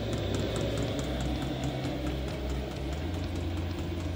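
Vevor 8 kW diesel air heater running steadily, not terribly loud: a low, even hum from its fan and burner, with faint regular ticks from its fuel dosing pump.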